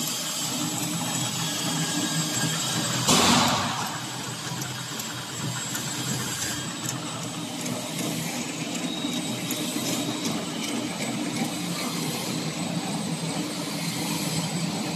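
76 mm tube chain conveyor running: its electric drive motor and the chain dragging through the steel tubes make a steady mechanical hum. A brief loud burst of noise comes about three seconds in.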